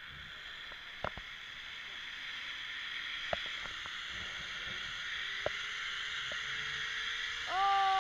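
Zipline trolley running along the steel cable: a steady rushing hiss that grows louder as the ride speeds up, with a faint whine rising slowly in pitch and a few sharp clicks. A short cry from the rider near the end.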